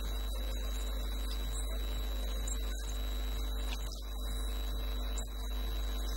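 Steady low electrical mains hum with a thin high whine above it, holding at one level throughout.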